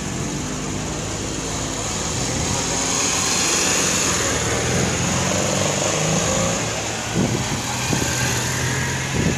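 Small classic cars driving slowly past at low revs. The loudest moment, about three to five seconds in, is a Citroën 2CV's air-cooled flat-twin engine passing close by with a steady hum.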